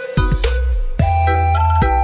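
Upbeat music with a deep bass line, a bright synth-like melody and a beat. The bass thins out near the start and comes back in full after about a second.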